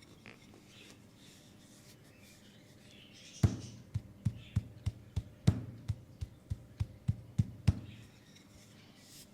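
Hands striking a bare, oiled leg in percussive massage: a run of about fourteen short, dull thumps, about three a second, starting about three and a half seconds in, with a few louder hits among them.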